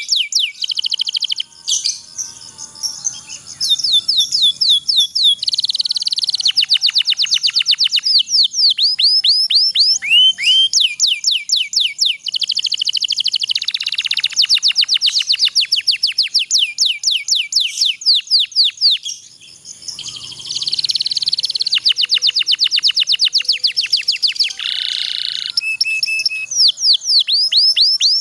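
Domestic canary singing long rolling trills: fast runs of rapid, repeated high whistled notes, with brief pauses about two seconds in and again about two-thirds of the way through.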